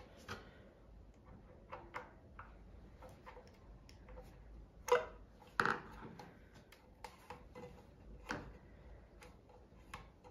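Hands working at the plastic base housing of an opened Ideal Automatic sewing machine: scattered small clicks and taps, with a few louder knocks about five seconds in and again near eight seconds.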